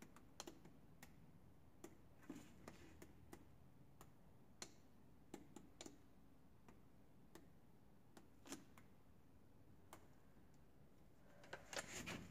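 Near silence with faint, scattered small ticks about once or twice a second, and a short burst of louder handling noise near the end.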